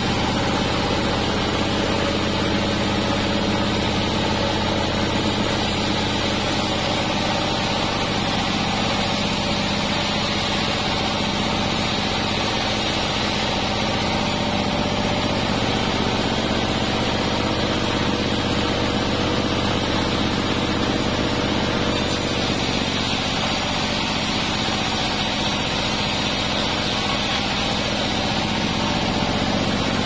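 Sawmill band saw running steadily with a constant mechanical hum and several steady tones, apparently free-running without a cut while the log is positioned.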